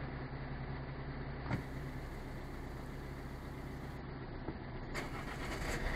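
Vehicle engine idling steadily, heard from inside a car, with one sharp click about one and a half seconds in.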